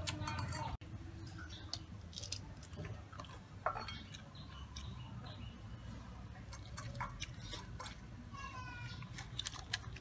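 Scattered clicks and crinkles of a metal spoon scooping through a foil-and-banana-leaf packet of grilled fish on a plate, along with chewing.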